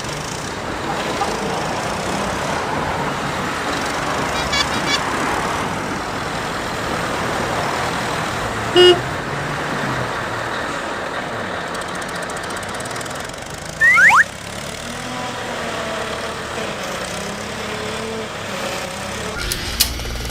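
Cartoon traffic sound effects: a steady rumble of vehicles, with one short loud horn toot about nine seconds in and a brief falling squeal about five seconds later.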